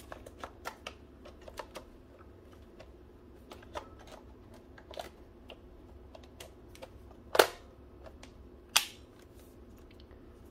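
Nylon-and-metal body parts of a toy gel blaster being handled and fitted back together: scattered small plastic clicks and rattles, then two loud snaps about a second and a half apart as the upper half is pushed back onto the lower receiver.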